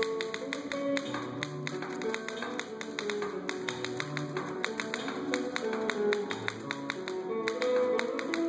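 Music with a steady stream of rapid, sharp clicks over sustained pitched notes.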